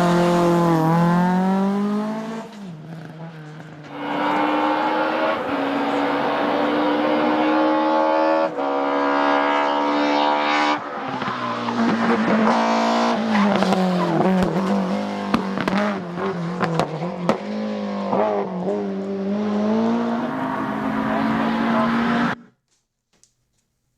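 Rally car engines at full effort, revving and changing gear so the pitch climbs and drops in steps, with a run of sharp cracks in the middle. There is a brief lull about two seconds in, and the sound cuts off abruptly near the end.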